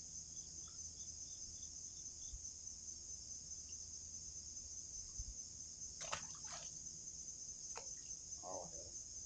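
Steady, high-pitched chorus of insects, such as crickets, trilling continuously, with a few faint clicks about six to eight seconds in.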